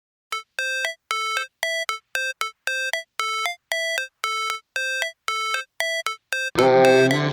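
Background music: a melody of short, bright synth notes, about three a second, then the full track with bass coming in near the end.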